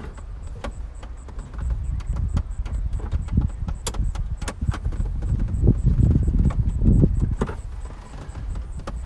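Plastic interior trim panels of a Tesla Model S being pried and worked loose with a flat glazing bar: scattered sharp clicks and knocks over rubbing and bumping, heaviest in the second half.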